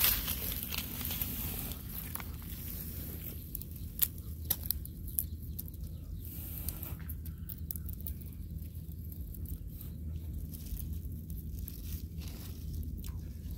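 Hands breaking apart a grilled crab, the shell and legs giving scattered sharp cracks and crackles.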